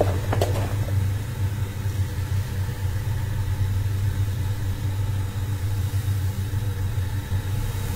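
Dark ambient drone: a low, steady rumble, with a few short taps in the first second.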